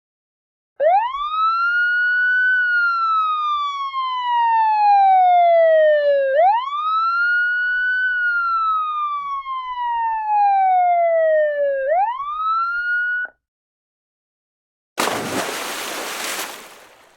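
Siren wailing: each cycle rises quickly, then falls slowly over about five seconds, twice in full before a third rise is cut off. Near the end a short burst of hiss-like noise fades out.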